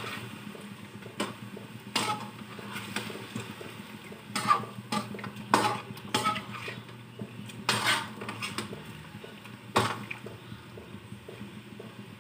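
A cooking utensil knocking and scraping against a frying pan as pieces of chicken are turned, in irregular clinks a second or two apart.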